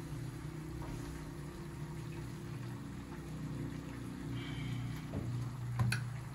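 A steady low hum as a cloth wipes down a stainless-steel sink counter, with a brief faint squeak and then two light knocks near the end, the second the loudest.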